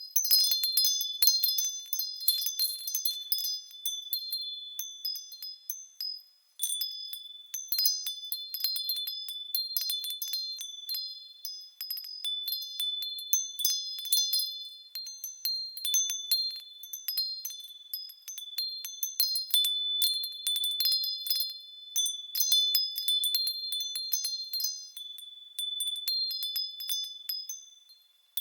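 Japanese fūrin wind bell ringing in the breeze, tinkling in irregular clusters of quick strikes over a clear, high ringing tone that hangs between them. It dies away almost to nothing briefly about six seconds in and again near the end.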